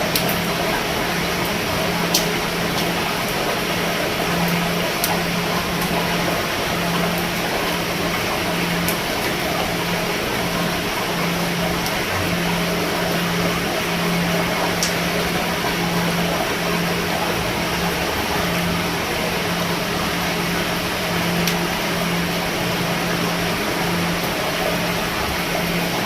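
Steady rain falling on a roof, with scattered sharper drop ticks. Under it runs a low hum that pulses on and off about once a second.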